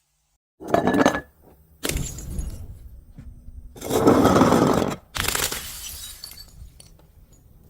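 Glass breaking and being crushed in four separate bouts of shattering and crunching, after about half a second of silence; the third bout, about four seconds in, is the longest and loudest.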